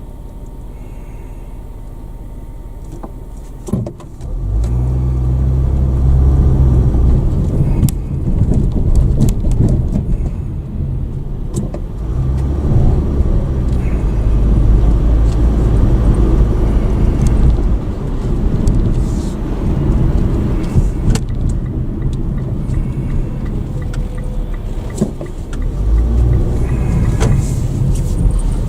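Car heard from inside the cabin: a quiet steady hum for about four seconds, then it pulls away and drives on with loud, steady low engine and road rumble.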